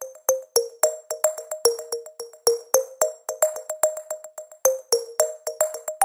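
Background music: a light electronic tune of short, quickly fading notes, about three or four a second.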